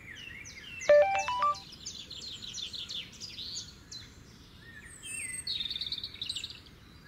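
Mobile phone message alert: a short run of stepped beeps about a second in, taken as the sign that money has arrived in the bank account. Birds chirp and trill throughout.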